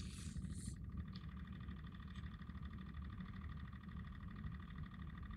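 Faint room tone: a steady low hum with a thin, steady high-pitched whine over it, and no distinct event.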